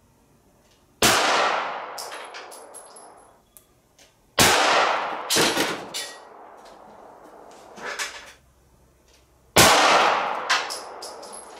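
Three 9mm pistol shots from a Glock 19, the first about a second in and the others roughly three and five seconds later, each ringing out for a second or two. Smaller knocks and clatter fall between the shots.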